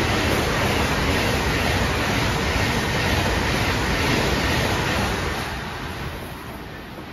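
Sapsan (Siemens Velaro RUS) high-speed electric train rushing past at speed: a loud, steady rush of wheels and air that fades from about five seconds in as the last cars go by.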